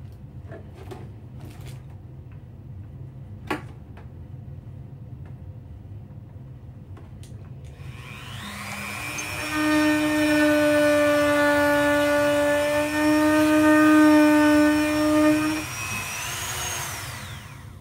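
Corded handheld rotary tool spinning up with a rising whine, running at a steady high-speed whine for about six seconds, then slowing and stopping near the end. A few light handling clicks come before it starts.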